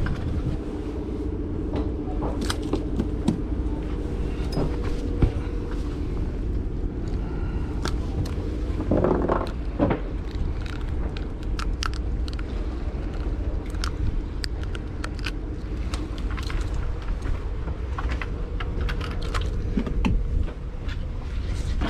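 Steady low hum of the fishing boat's machinery, with scattered clicks and knocks from a freshly caught bluefish being handled and unhooked with pliers on deck, and a louder brief scuffle about nine seconds in.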